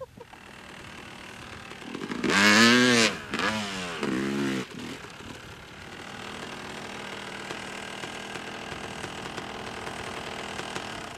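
2004 Yamaha YZ250 250cc two-stroke dirt bike engine, revved hard twice with the pitch rising and falling each time, then running steadily at a lower level until it cuts off at the end.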